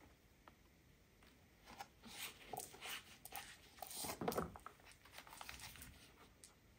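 Faint rustling and scraping of a handmade paper junk journal being slid out from between other journals on a packed shelf, loudest about four seconds in.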